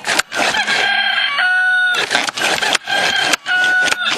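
Electronic toy sound effect playing over and over, about three times: each time a rough, noisy call followed by a short held tone.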